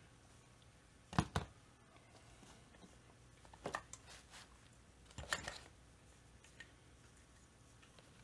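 Light knocks and clicks of a plastic chainsaw tank housing being handled and fitted, in three short clusters about one, three and a half, and five seconds in.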